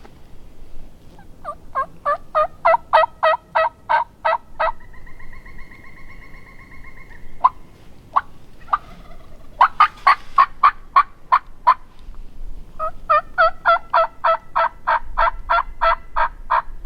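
Turkey yelps: three long runs of loud, evenly spaced yelps at about five a second, with a long steady note between the first two runs.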